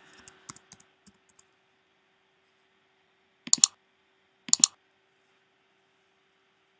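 A few faint keystrokes on a laptop keyboard, then two sharper clicks about a second apart, each a quick double click. A faint steady hum runs underneath.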